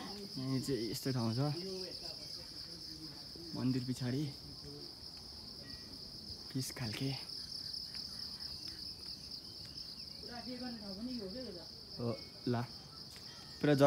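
Steady, high-pitched insect drone, with brief snatches of people's voices now and then.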